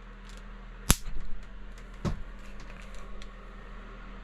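A gunshot: one sharp crack about a second in, followed by a few smaller knocks and a duller thump about a second later.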